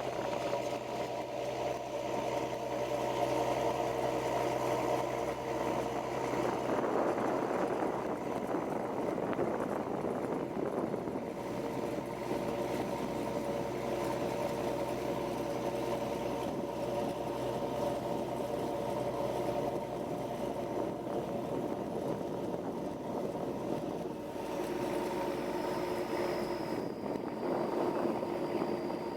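Boat's engine running steadily under the rushing wash of water as the hull cuts through the sea. About 24 seconds in, the engine's low hum drops away and a different, higher steady tone takes over.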